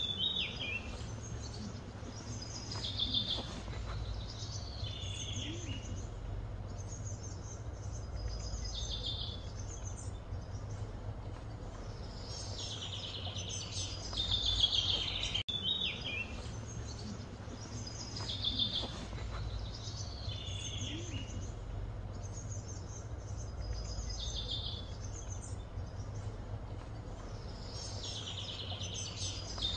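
Birds singing in short repeated phrases of high chirping notes over a steady low background rumble.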